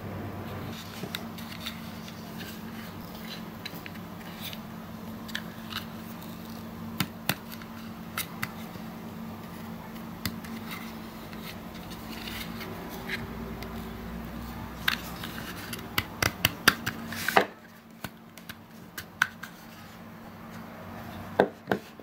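Clicks and taps of a hard clear-plastic Mocomoco Thomas toy being handled in the hands, scattered throughout with a quick run of clicks about sixteen to seventeen seconds in. A steady low hum underneath stops suddenly just after that run.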